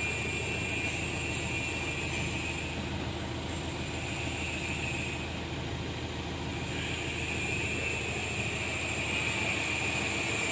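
Mitsubishi Strada Triton's common-rail diesel engine idling steadily, still warming up from cold, heard from inside the cab. A faint high whine drops away for a few seconds in the middle and comes back.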